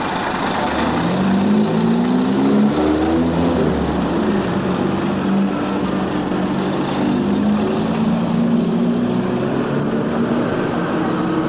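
Truck engines running, one revving up and pulling away with its pitch rising in steps as it goes up through the gears, over steady traffic noise.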